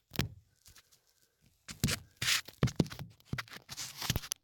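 Metal electrician's fish tape (snake) being pushed down a wall cavity through a switch box, scraping and clattering in irregular bursts, most of them in the second half.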